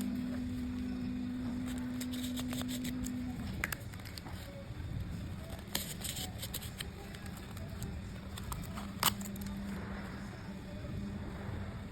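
Utility knife blade cutting into wood: scattered crackles and clicks, with one sharp click about nine seconds in, over a steady low hum that drops slightly in pitch about three and a half seconds in.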